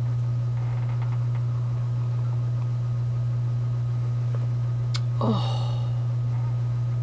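A steady low hum, with a sharp click about five seconds in, then a woman's falling 'oh' and a breathy exhale after a drink of milk from a mug.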